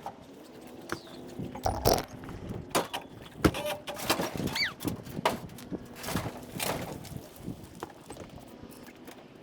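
Irregular knocks, clicks and clatter, a dozen or so hard hits spread unevenly, with a short falling chirp about four and a half seconds in.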